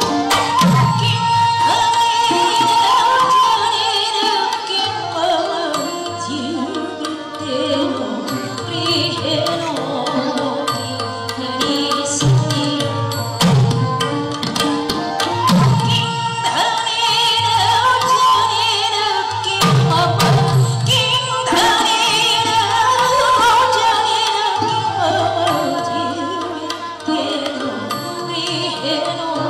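Indian classical dance music: a slow sung melody over a steady drone, with hand-drum strokes recurring every couple of seconds.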